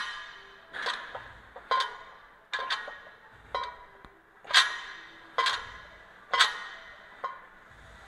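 Iron weight plates clanking on a barbell's sleeves during a set of overhead presses: sharp metallic clanks with a short ringing tail, about one a second, the loudest right at the start.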